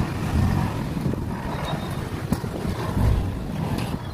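Motorcycle engine running at idle, a steady low sound with no change in speed.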